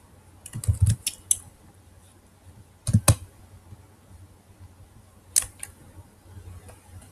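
A few scattered clicks from a computer mouse and keyboard: a cluster about a second in, a louder pair about three seconds in, and two more a little after five seconds.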